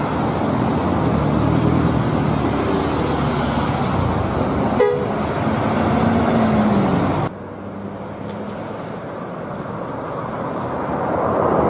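Intercity coach buses in street traffic, their engines running and horns tooting. About seven seconds in the sound drops suddenly to a quieter stretch, then grows louder again toward the end.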